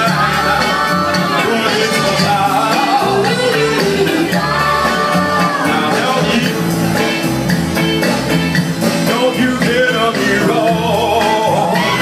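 Loud music with a singer, playing continuously.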